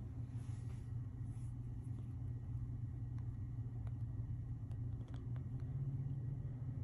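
A steady low hum, with a few faint light taps of fingertips on a phone's touchscreen keyboard between about three and five and a half seconds in.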